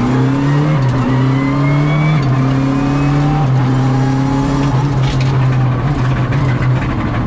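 Rally car engine heard from inside the cockpit, pulling hard up through the gears with quick upshifts every second or so, then a downshift about five seconds in, with a few short sharp cracks at the shift.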